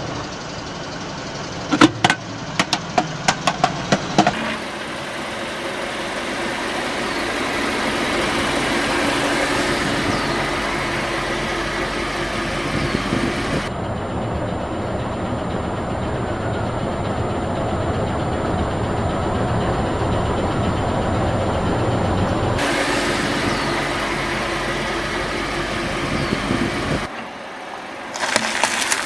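Car engine running steadily at low speed, with a run of sharp cracks and snaps in the first few seconds as objects crunch under the tyres.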